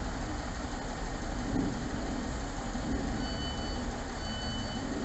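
Class 150 Sprinter diesel multiple unit idling at a platform with a steady low rumble. From about three seconds in, a high beep sounds roughly once a second, typical of the train's door warning.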